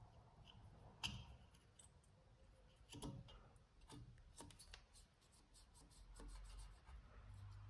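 Faint, scattered clicks and a few light knocks, about one and three seconds in, from tools and parts being handled during a brake pad change.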